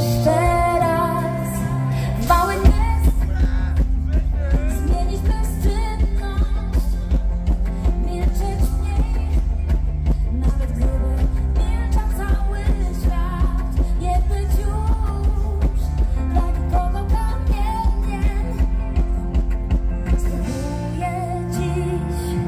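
Live pop band playing with singing. A steady beat with bass and drums comes in about two and a half seconds in, and the low end drops away near the end.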